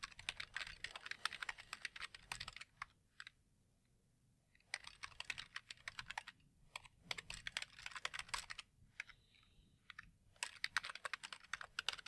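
Computer keyboard typing: runs of quick keystrokes with short pauses between them, about three seconds in and again about nine seconds in.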